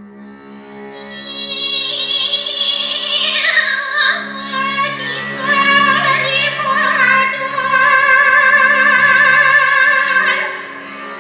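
A woman singing long held notes with a wide vibrato in an operatic style, over a steady low drone. The voice swells louder about two seconds in and softens near the end.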